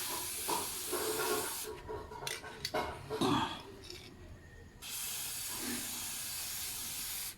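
Koby aerosol chain lube sprayed onto a chain in two bursts: a short hiss at the start and a longer one from about five seconds in, each cutting off suddenly. Light knocks and rubbing come between the sprays.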